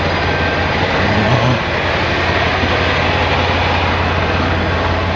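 Semi truck's diesel engine idling, a steady low hum under an even rushing noise.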